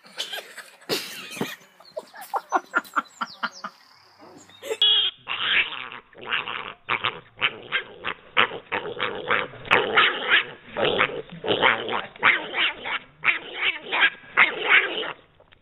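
Sharp short bursts of sound for the first few seconds. Then a piglet vocalizing in rapid short bursts, about two or three a second.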